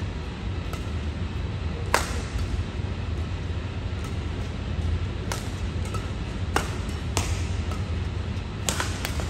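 Badminton rackets striking a shuttlecock during a rally: several sharp, crisp hits a second or more apart, the loudest about two seconds in, over a steady low hum.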